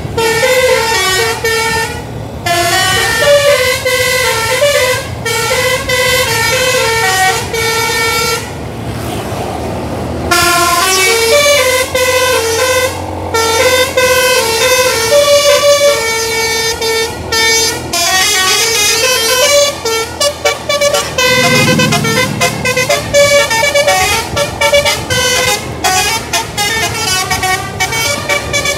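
A bus's telolet (basuri) multi-note musical horn playing a long string of quick melodic notes. It pauses briefly about nine seconds in and plays a fast staccato run near the end.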